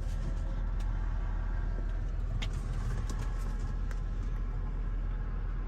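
Steady low rumble of a car engine idling, heard from inside the cabin, with a few faint clicks.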